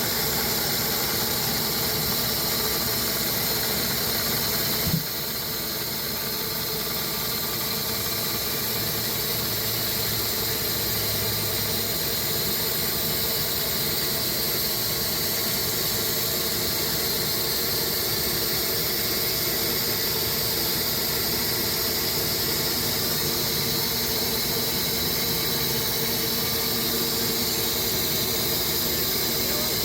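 Electric band sawmill running its blade through a hardwood log: a steady, high squealing hiss with a few held tones. A sharp click comes about five seconds in, after which the sound drops slightly and slowly builds back up.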